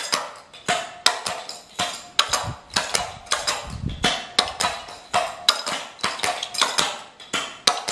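Metal-tipped tap shoes striking a wooden floor in tap-dance steps: a quick, uneven run of sharp clicks, several a second.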